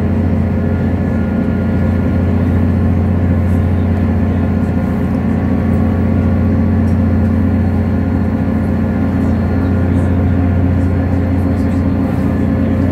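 Steady running noise heard inside a diesel passenger train on the move: an even, low hum and rumble with faint steady whining tones above it.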